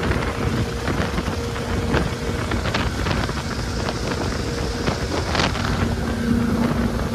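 Motorboat running, its engine a steady hum with wind buffeting the microphone; the hum grows stronger about six seconds in.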